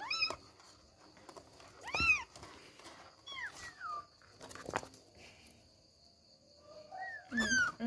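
Young kittens meowing: several short high-pitched mews that rise and fall in pitch, the loudest about two seconds in and a pair near the end, with a light knock near the middle.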